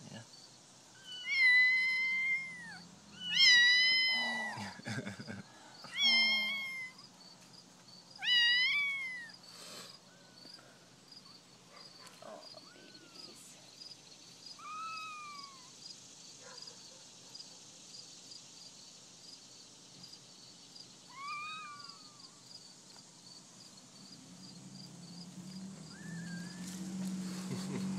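Young kittens mewing: a run of loud, high mews in the first nine seconds, each rising then falling in pitch, then a few fainter mews several seconds apart.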